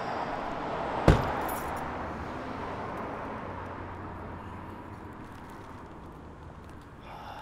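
A car door is shut with a single sharp slam about a second in, followed by a few faint light clicks, over a steady background hush that slowly fades.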